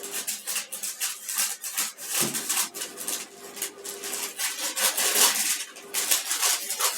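Rapid, irregular rustling and scraping of kitchen things being handled, over the steady low hum of a running microwave oven.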